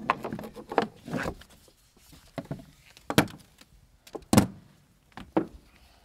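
Metal ratchet strap hardware clacking and knocking against a side-by-side's plastic cargo bed as the strap and webbing are handled: several separate sharp knocks, the loudest about four seconds in.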